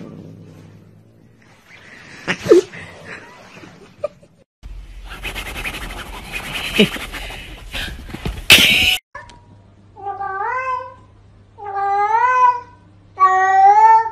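A cat meowing three times in the second half, long drawn-out meows that rise and then fall in pitch, each about a second long and a little louder than the one before. Before that comes a stretch of noisy rustling and bumping that ends in a sharp thump.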